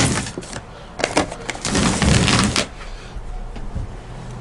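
Handling noises: a few sharp clicks and knocks, then a dense rustle lasting nearly a second about two seconds in.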